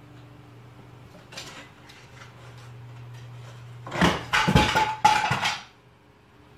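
A traffic-light lamp knocked off a side table by a cat crashes to the floor, several clattering impacts over a second and a half with a brief ringing tone. A steady low hum runs underneath.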